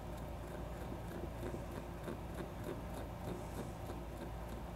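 Faint, irregular small clicks and ticks from fingers and a small precision screwdriver working tri-wing screws into a smartwatch's back cover, over a steady low hum.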